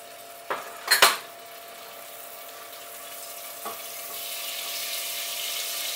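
Butter sizzling as it melts into hot sugar in a stainless steel saucepan, the hiss growing steadily louder. A sharp knock on the pan about a second in, with a couple of lighter taps.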